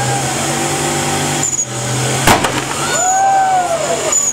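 Turbocharged V8 buggy engine held at high revs in a tyre-smoking burnout, with one sharp crack a little over two seconds in and squealing glides that rise and fall in the second half.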